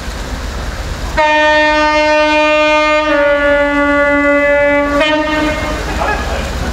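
Class 43 HST power car's air horn sounding one long blast of about four seconds, its pitch stepping slightly lower partway through, over the steady rumble of the approaching train.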